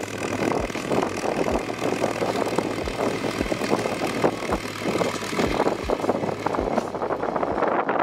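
IMT 540 tractor's diesel engine running steadily as it pulls a Cambridge roller over tilled ground, a low hum under a dense rattling clatter. Soft low thumps recur about twice a second, and the hum fades near the end.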